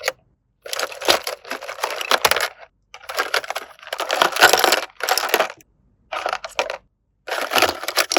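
A toy doctor playset being unboxed and handled: a run of short crinkling, rustling and clattering bursts of packaging and small toy pieces, each cut off by a sudden silence.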